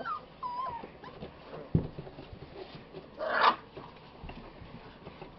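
Five-week-old puppies whimpering, with short high wavering whines in the first second, a knock near two seconds in, and a louder, rough yap about three seconds in.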